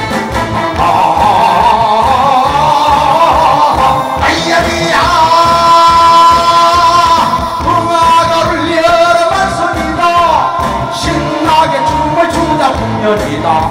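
A man singing a Korean trot song into a microphone over loud backing music with a steady beat. About five seconds in he holds one long high note for roughly five seconds, then lets it go.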